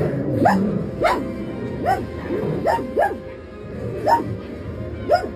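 Small dog barking repeatedly, about seven sharp barks at irregular intervals under a second apart, over soundtrack music playing from a television.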